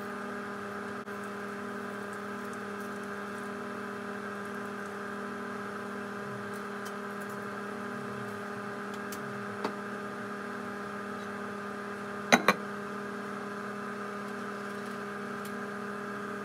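Steady electric hum made of several constant tones, like a running kitchen appliance. A faint click comes near the middle, and a sharp double knock, the loudest sound, comes about twelve seconds in.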